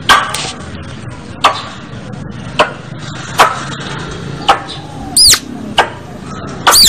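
Squirrel calling on a lure-call recording: short, sharp chip notes repeating about once a second, with two longer arching whistled calls near the end.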